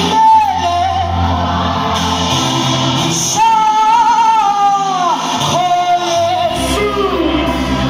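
Vocal group singing a song live, a lead voice holding long wavering notes that bend downward at their ends, over steady low accompaniment.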